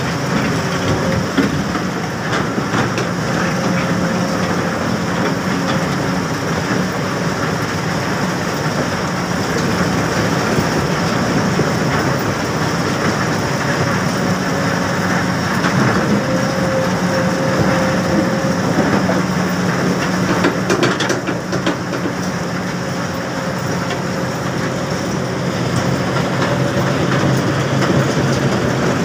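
Heavy mining machinery running: a diesel excavator engine drone under a continuous dense rattle of rock and steel, as iron ore is sifted in a skeleton bucket.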